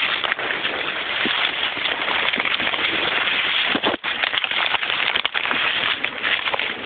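Close, continuous rustling and crackling of leaves and brush with many small snaps, as someone pushes through dense undergrowth. The sound drops out for a moment about four seconds in.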